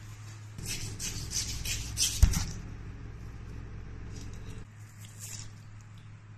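A raw stingray being handled and cut on a plastic cutting board: a run of short scraping and handling noises with one sharp knock about two seconds in, a few fainter ones later, over a steady low hum.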